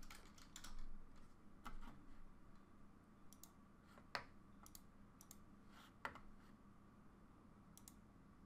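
Faint, scattered clicks of a computer keyboard and mouse while code is edited and run: about a dozen separate clicks at uneven intervals, the sharpest about four and six seconds in.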